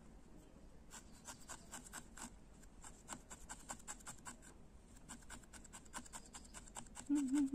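Felting needle stabbing again and again into firm felted wool, a run of faint, dry scratchy pokes about five a second, as a black wool spot is needled onto the red wool body. A brief hummed voice sound comes near the end.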